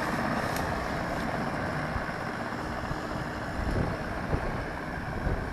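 Excavator's diesel engine running steadily, with a few dull knocks about four seconds in.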